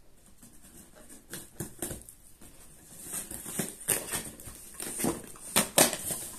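Cardboard shipping box being opened by hand, its packing tape pulled off the top: quiet at first, then scattered scrapes, rustles and sharp cracks, the loudest a pair near the end.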